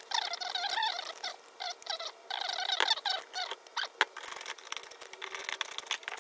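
Fast-forwarded assembly audio: squeaky, chipmunk-like chatter over quick clicks and rattles of steel hose clamps and a nut driver as a clamp is fitted and tightened on rebar and PVC.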